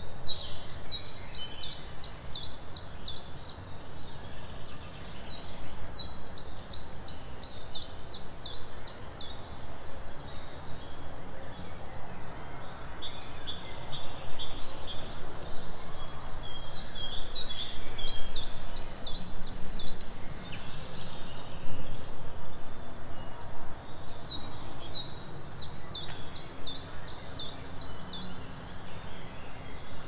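Forest songbirds singing. One bird repeats a phrase of quick, high, downward-slurred notes lasting about three seconds, four times over, and another bird's notes come in between. A steady low background rumble runs underneath.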